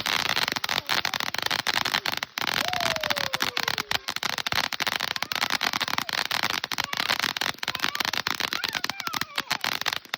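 Consumer fireworks crackling, with a dense, rapid run of pops throughout and a brief falling tone about three seconds in.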